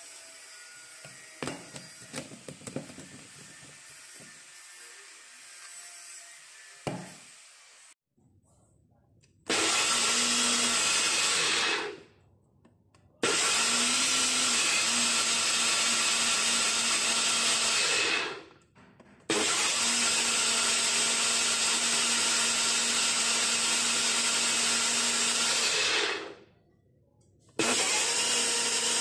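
Personal blender with a tall cup on a motor base, blending basil leaves into pesto in four runs of a few seconds each with short stops between them, the last still running at the end. Before the motor starts about nine seconds in, a few light knocks and clinks as the blender cup is handled.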